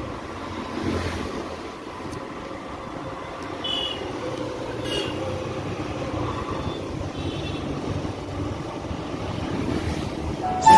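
Motorcycle running along a road, a steady rush of engine and road noise. Two short high-pitched tones sound about four and five seconds in.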